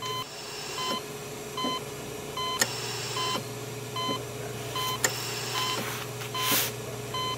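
Patient heart monitor beeping at an even pulse-like pace, a little under one short electronic beep a second, over a steady low hum.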